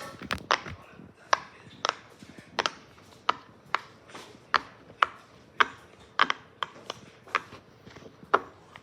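A fidget toy clicking repeatedly, about fourteen sharp separate clicks at roughly two a second.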